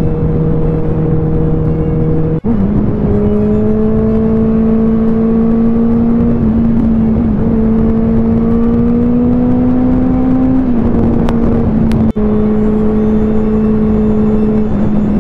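Benelli TNT 600i motorcycle's inline-four engine running at steady highway cruise, heard from the rider's seat with wind noise. The engine note climbs slowly as the bike pulls. The sound cuts out for an instant twice, about two and a half seconds and twelve seconds in, and the pitch jumps each time.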